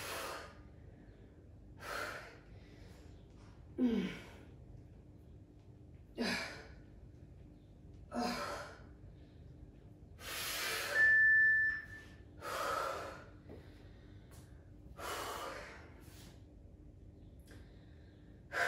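A woman breathing hard through weighted lunges: a sharp exhale, often with a short grunt, about every two seconds. About halfway through comes one longer, louder breath and a brief high beep.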